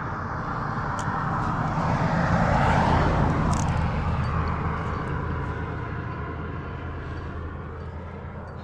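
A motor vehicle passing by: engine and tyre noise swelling to a peak about three seconds in, then slowly fading away.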